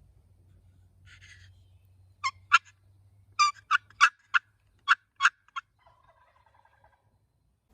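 Wild turkey tom gobbling: a run of loud, sharp notes over about three seconds, with a fainter call after them.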